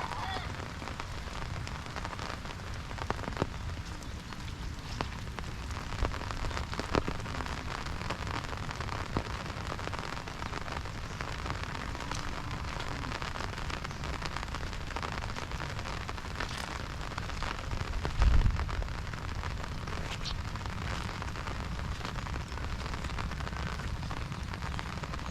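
Steady monsoon rain falling, with scattered sharp drop ticks and a brief low thump about two-thirds of the way through.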